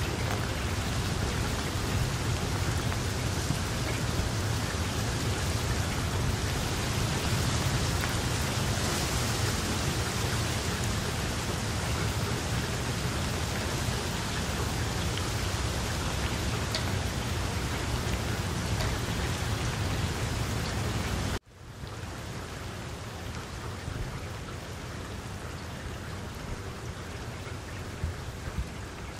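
Steady rain falling onto a pond's surface, a dense patter with a low rumble beneath it. About 21 seconds in it cuts out for an instant and resumes softer, without the rumble.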